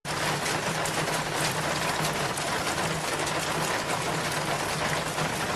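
Steady rush of falling water, a dense even hiss with a faint low hum beneath it.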